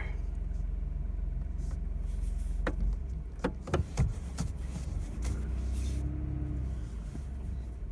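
Vehicle engine running with a steady low rumble, with a few sharp knocks or rattles about three to four seconds in, as the vehicle moves over rough pasture ground.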